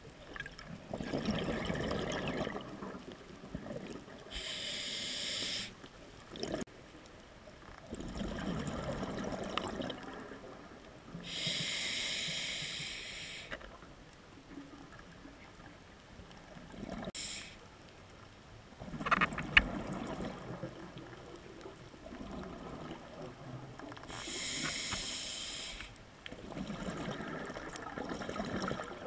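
Scuba diver breathing through a regulator: several slow breaths, each a short hiss of air drawn through the demand valve, alternating with a longer bubbling rush of exhaled air.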